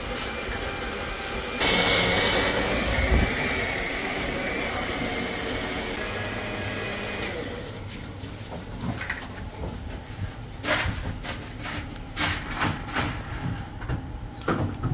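Electric countertop blender starts up about two seconds in and runs steadily for about five seconds, blending a thick ice-cream milkshake, then stops. A run of knocks and clinks follows as the blender jar is handled.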